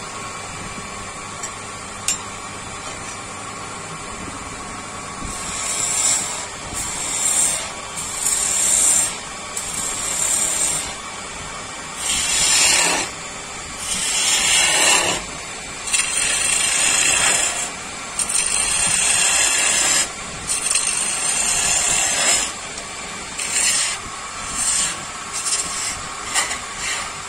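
Wood being worked with a tool in repeated scraping strokes, each lasting a second or two, over a steady machine hum; the strokes begin about five seconds in.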